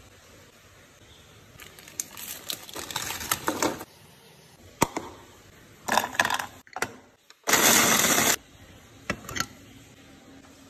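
Crinkling of a plastic Oreo cookie packet being handled and opened, then red velvet Oreo cookies clattering into a plastic food processor bowl. This is followed by a short, loud burst of the food processor grinding them to crumbs, under a second long.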